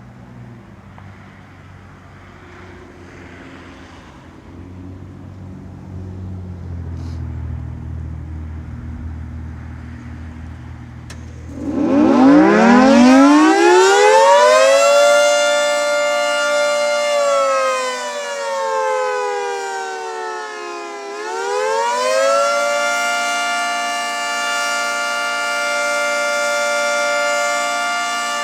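Federal Signal 3T22A three-tone outdoor warning siren starting up about twelve seconds in, winding up in pitch to a full wail. It then slides down and rises again on the attack signal. Before it starts there is only a low rumble.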